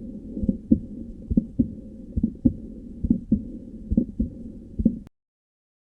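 Recorded heart sounds heard through a stethoscope: dull, low lub-dub beats about once every 0.9 seconds over a faint hiss, demonstrating a split first heart sound, where the atrioventricular valves close out of step. The recording cuts off about five seconds in.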